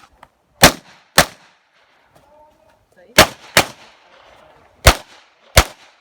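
SIG MPX 9mm pistol-caliber carbine firing six shots: a pair about half a second and a second in, another quick pair around three seconds in, then two more shots about two-thirds of a second apart near the end.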